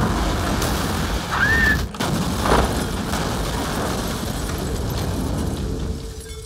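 Explosion sound effects as a light aircraft blows up: a long booming blast with rumbling, a second blast about two seconds in, dying down near the end.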